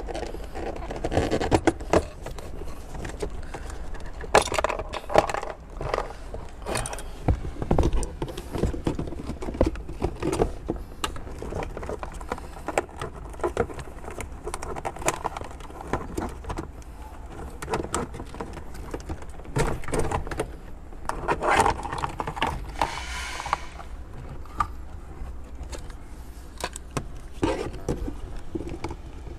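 Plastic center-console trim around the gear shifter of a 2018 Perodua Myvi being pried and worked loose by hand: irregular clicks, knocks and scrapes of the panel and its clips, with a denser rattling stretch about two-thirds of the way in.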